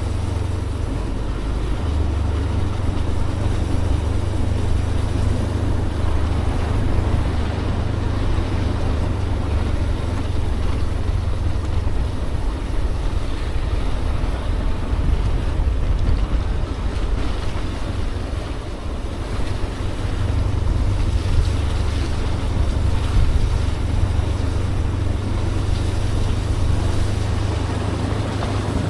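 Wind buffeting the microphone in a steady low rumble, with a motorbike running underneath, as on a ride along a mountain road.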